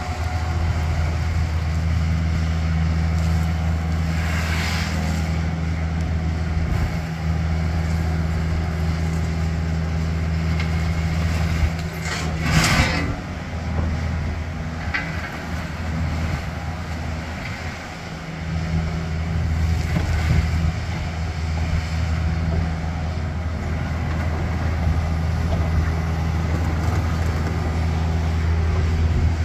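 Takeuchi TB250 mini excavator's diesel engine running steadily with a deep hum while the machine digs and grades soil, with a brief louder noisy burst about twelve seconds in.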